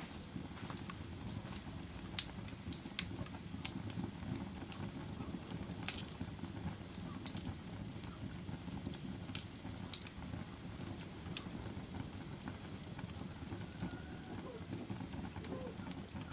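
Fire crackling: a steady low rush of flames with sharp, irregular pops and snaps scattered through it, a few of them louder.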